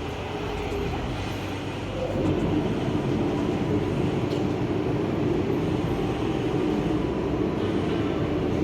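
Steady drone of heavy machinery running, growing louder about two seconds in and then holding with a low hum.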